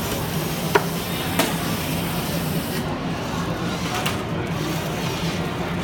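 Steady din and low hum of a busy hall, with two sharp knocks less than a second apart about a second in and a fainter one about four seconds in.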